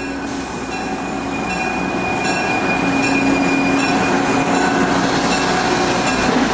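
Budd RDC diesel railcar train moving along the track, getting steadily louder, with a steady thin high whine over its rumble.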